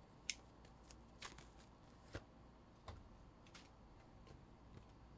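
Near silence with a handful of small, sharp clicks and taps scattered through it, the loudest about a third of a second in: light handling noises close to the microphone.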